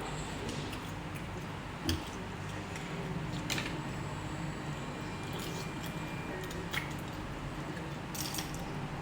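Person eating a spicy seafood salad: wet chewing and squishing, with a few scattered sharp clicks and crunches over a steady low background hum.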